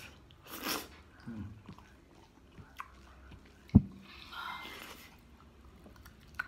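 A person eating rice and curry by hand: soft chewing and mouth sounds, with one sharp knock a little before four seconds in.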